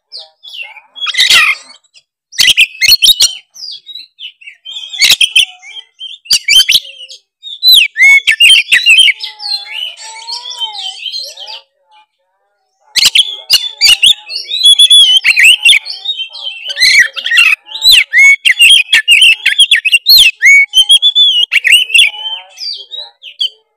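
Oriental magpie-robin (kacer) singing in full song: rapid, varied whistled phrases mixed with sharp clicking notes, breaking off for about a second halfway through before starting again.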